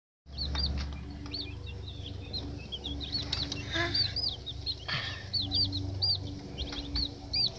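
A group of young chicks peeping: a rapid, overlapping run of short, high, arched cheeps, several a second.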